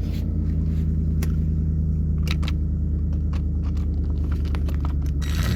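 A steady low mechanical hum with evenly spaced tones, like a running motor, with scattered light clicks and taps on top.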